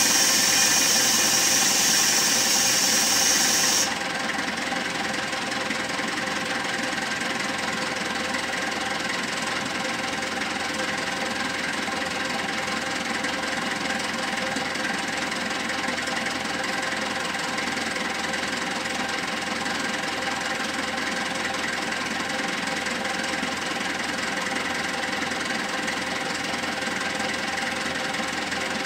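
SYZG wheel loader's diesel engine idling steadily after servicing. A loud hiss sits over it for about the first four seconds and then cuts off suddenly.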